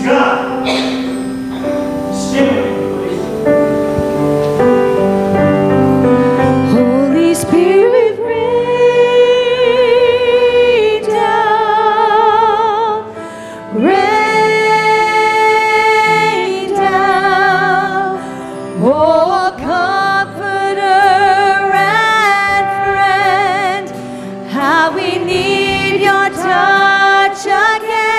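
Gospel worship song: sustained instrumental chords, then a female singer comes in about eight seconds in, holding long notes with a strong vibrato over the accompaniment.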